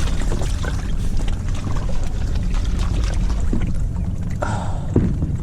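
Wind buffeting a body-worn GoPro's microphone as a steady low rumble, with scattered small clicks and rustles of handling.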